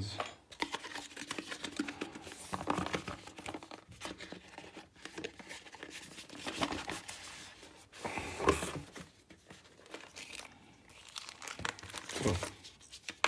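Tablet packaging being opened by hand: plastic and paper wrapping crinkling and tearing in irregular crackly rustles, with louder bursts about two-thirds of the way in and near the end.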